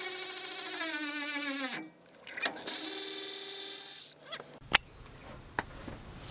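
Milwaukee cordless electric ratchet running in two spells, about two seconds then a second and a half, with a short pause between, as it chases the threads in the truck's driveshaft yoke bolt holes. A few sharp clicks of the tool being handled follow near the end.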